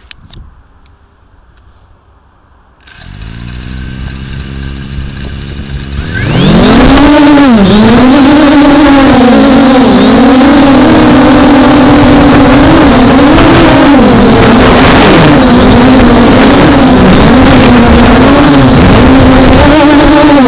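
MJX Bugs 5W brushless quadcopter motors spinning up: a low hum starts about 3 seconds in, then about 6 seconds in the throttle opens to a loud whine for lift-off. The whine keeps wavering up and down in pitch as the motors constantly change speed to hold the drone in gusty wind without GPS stabilization.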